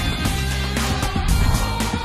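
Instrumental background music with a steady beat under sustained tones.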